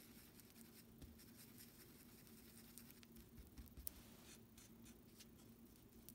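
Faint scraping and dabbing of a thin wooden stick working a white paste into a hole in an MDF board, with light scattered taps and one sharper tick about four seconds in, over a faint steady hum.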